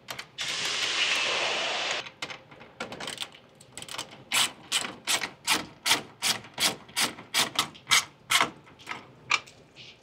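Ratchet wrench tightening the nut of a duct clamp: a steady noise of about a second and a half near the start, then a run of evenly spaced ratchet clicks at about three a second.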